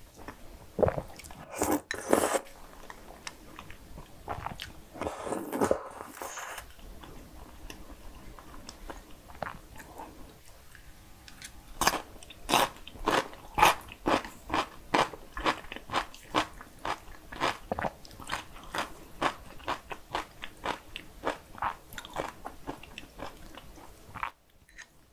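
Close-miked eating: cream spaghetti noodles slurped from a bowl twice, then steady chewing with sharp, regular mouth sounds about twice a second.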